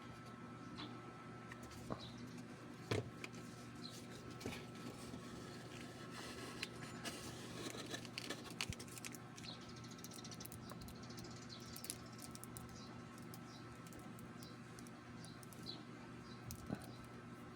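Quiet handling of a trading-card deck and its packaging: soft rustling and scattered light clicks, busiest about halfway through, over a low steady hum, with short faint high chirps throughout.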